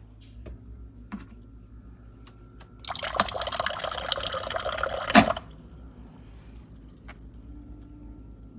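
Liquid pouring in a steady stream for about two and a half seconds, starting about three seconds in and stopping abruptly with a short knock. A few faint clicks come before it.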